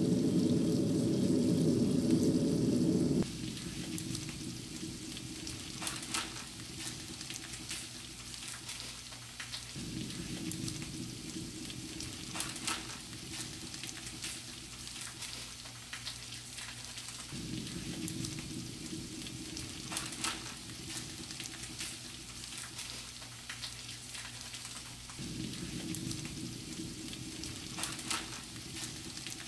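Food sizzling in a frying pan, with scattered sharp clicks of a utensil stirring against the pan. A louder low hum drops away about three seconds in.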